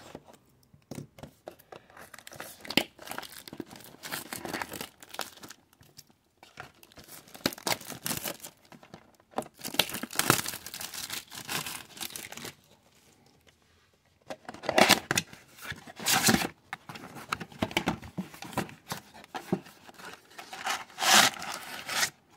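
Plastic shrink wrap being torn and crinkled off a trading-card mega box, then the cardboard box opened and the card packs handled. The rustling and tearing come in irregular bursts, with a pause of about two seconds past the middle.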